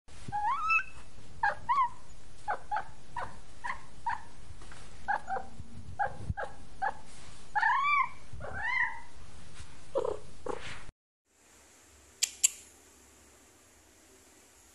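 Cat meowing over and over: a quick series of short calls, some rising and falling in pitch. About eleven seconds in it cuts to a faint steady hiss, with two sharp clicks shortly after.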